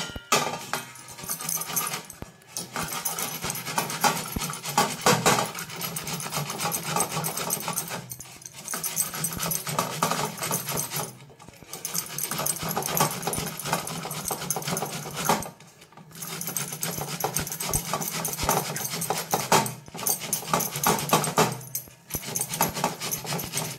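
Cauliflower being grated by hand on a flat steel grater: a rapid rasping scrape with every stroke, in stretches of a few seconds broken by several short pauses.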